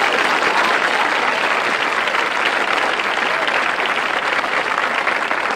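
Studio audience applauding steadily at the end of a stand-up comedy routine.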